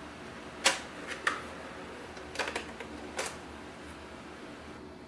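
HP DeskJet 4255e all-in-one printer's document feeder and scanner mechanism clicking and clacking several times, irregularly, over a faint steady motor hum while it scans a two-page batch.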